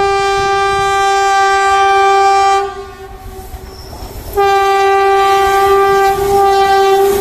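A passing passenger train's horn sounds two long, steady blasts. The first cuts off about two and a half seconds in and the second starts about a second and a half later, over the low rumble and clatter of the coaches running on the track.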